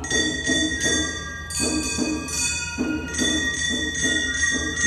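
Gion-bayashi festival music: small hand-held brass gongs (kane) struck in a quick, steady rhythm, their high tones ringing on between strokes.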